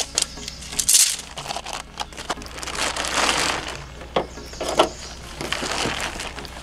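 Nylon tent fabric rustling and crinkling as it is handled, in irregular bursts, with a few sharp clicks and rattles from the tent poles and fittings about four to five seconds in.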